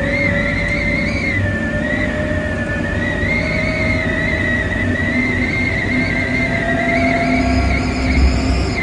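Hankyu 5100 series resistance-controlled electric train running at speed. Its traction motors and gears whine in a single tone that rises slowly as it gathers speed, over the steady rumble of the wheels, with a wavering high squeal on top.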